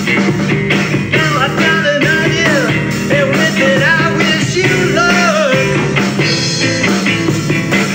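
Rock music with a lead line that bends up and down in pitch over steady low notes and a beat.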